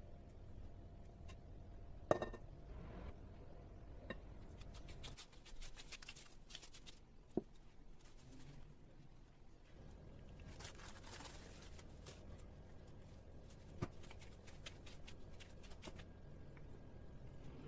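Quiet kitchen handling sounds during bread-dough preparation: scattered scraping and rustling, with a few sharp knocks of a utensil or container, the loudest about two seconds in.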